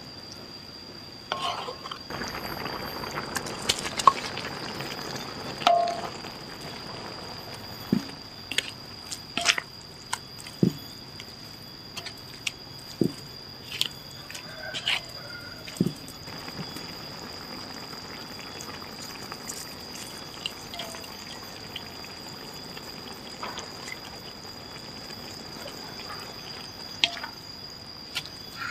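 A spatula stirring and scraping wet greens in a sauce in a wok. Sharp knocks of the spatula on the pan come every second or two, with a wet, sloshing stretch about two to four seconds in. A faint steady high whine runs underneath.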